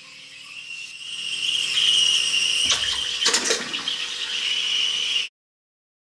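De'Longhi Caffè Treviso espresso machine's steam wand frothing milk in a mug: a steady hiss with a high whistling tone that builds over the first two seconds. It sputters briefly twice midway and cuts off suddenly near the end.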